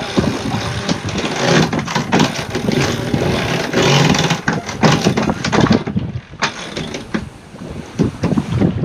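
Sailboat winch being cranked by hand with a winch handle, its ratchet clicking rapidly, over wind buffeting the microphone. The cranking eases after about six seconds.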